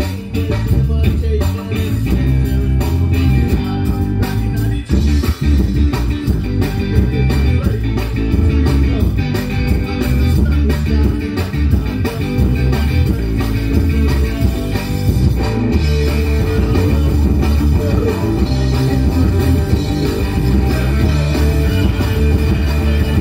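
Rock band playing live: electric guitar, bass guitar and drum kit, with a singer.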